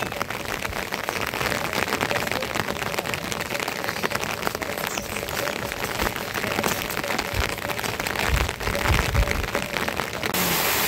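Steady rain falling, a dense stream of fine drops striking a surface. A few low thumps come about three-quarters of the way through, and shortly before the end the sound switches abruptly to a smoother rushing noise.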